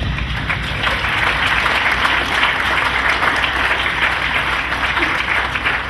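A theatre audience applauding, a steady crowd of clapping hands.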